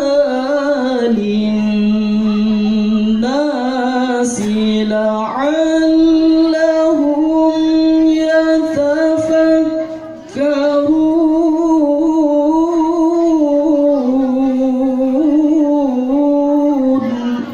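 A male qari chanting Quranic recitation (tilawah) in the melodic mujawwad style, holding long notes and decorating them with quick ornamental turns. He pauses for breath about ten seconds in, then starts a new phrase that ends just before the close.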